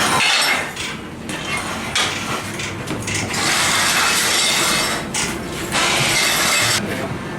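Metal tools and parts being worked in a shop: four bursts of rasping, ratchet-like mechanical noise, each about a second long.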